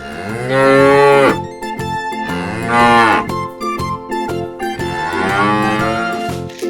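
Cow mooing three times, each moo a long call that rises and falls in pitch, the last one the longest, over light background music.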